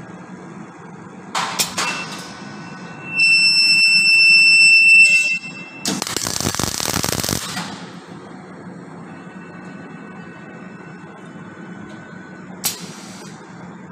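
Robotic MIG welding arc crackling for about a second and a half while tack-welding an automotive part, with a steady low machine hum throughout. Just before the weld, a loud steady high-pitched electronic beep sounds for about two seconds. There are brief sharp hissing bursts about a second and a half in and again near the end.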